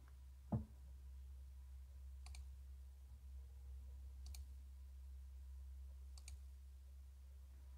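Faint computer mouse clicks, one about every two seconds, on a dialog's Close button, over a low steady hum. A soft thump comes about half a second in.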